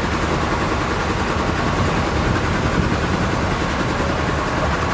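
Heavy machinery running with a steady, continuous engine-like drone.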